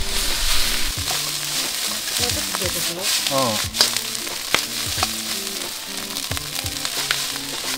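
Fried rice sizzling in a wok over a wood fire, with the metal ladle knocking and scraping against the pan as the rice is stir-fried.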